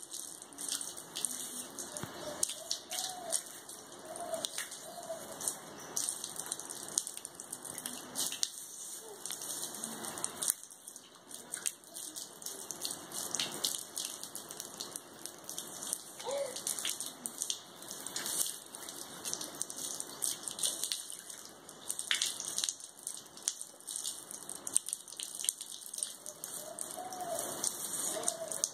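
Water from a garden hose, its end pressed by a small hand, spraying and splashing onto a wet concrete floor: an irregular patter of drops and splashes.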